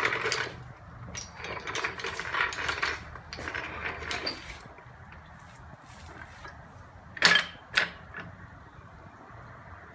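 Metal tools being handled in a home garage: a run of small clicks and rattles, then two sharp knocks about seven seconds in.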